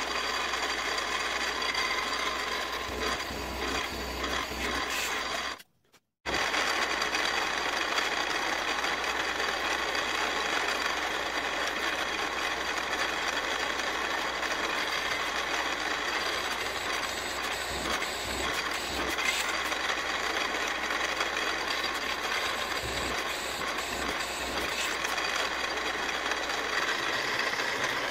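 Milling machine running steadily with a constant motor whine while its drill cuts holes in a cast iron flywheel blank. About six seconds in, the sound drops out for half a second and then resumes.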